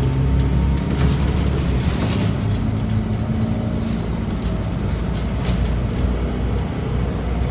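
Scania K94UB city bus under way, its 9-litre six-cylinder Scania DC9 diesel running steadily, heard from inside the cabin along with road noise.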